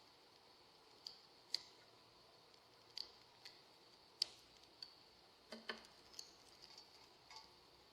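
Small birds at a feeder: faint, short, high chips and ticks at irregular intervals, about a dozen of them, over near silence.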